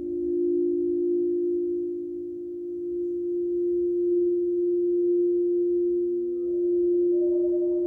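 A sustained, pure ringing tone from metal sound-healing instruments that swells and eases about every three seconds. Higher ringing tones join in near the end.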